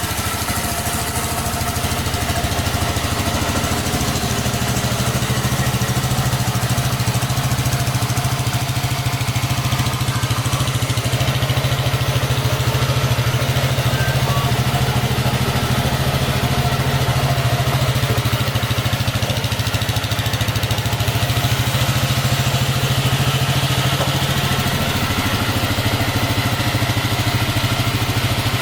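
Royal Alloy GP125 AC scooter's 125cc air-cooled single-cylinder engine idling steadily.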